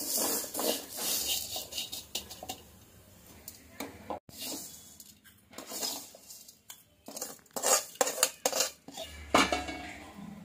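Slotted steel spatula scraping and clinking against an aluminium kadai as dry vermicelli is stirred and roasted brown in ghee. Louder metal clanks come in the second half.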